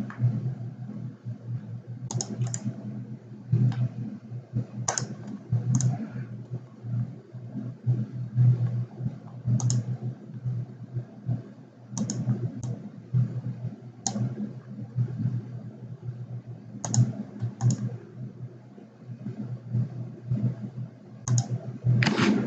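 Computer mouse and keyboard clicks, single and in quick pairs every one to three seconds, over a steady low hum.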